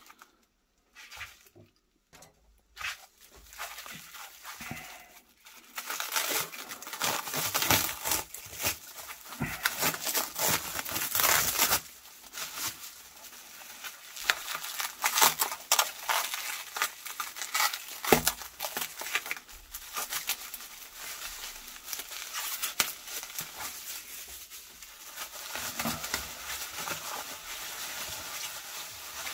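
Plastic bubble wrap crinkling and rustling as it is handled and pulled open by hand. It starts faintly, is loudest about six to twelve seconds in, then goes on more softly, with one sharp click partway through.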